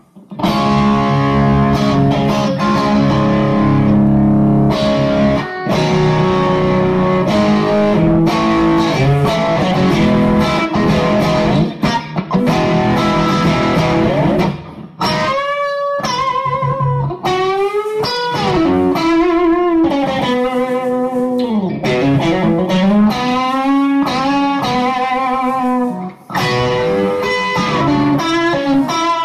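Fender Stratocaster electric guitar played through a Bad Cat Bobcat 5R tube combo amp: chords for about the first fifteen seconds, then single-note lead lines with string bends and vibrato.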